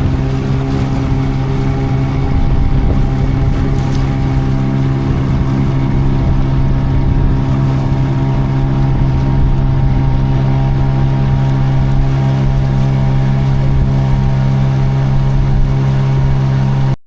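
Boat's outboard motor running at a steady speed, with a low rumble of wind on the microphone.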